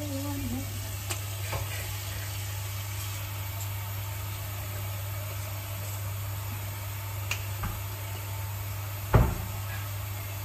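Kitchen mixer tap running steadily, water pouring into a cooking pot to fill it for boiling pasta, with a few light clinks and one loud knock about nine seconds in.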